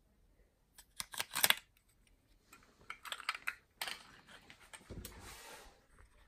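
Small steel tool shanks and a clear plastic case being handled: clusters of sharp clicks and light clinks about a second in and again around three seconds in, then a brief rustle near the end.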